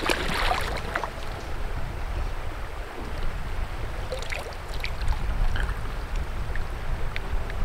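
Shallow river water running and lapping around a rainbow trout being handled in it, with a splash right at the start and a few small splashes and drips about four to five seconds in.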